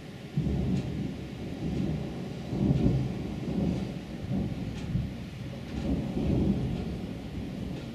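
Thunder rolling in a long, deep rumble that swells and fades several times, over a light hiss of rain.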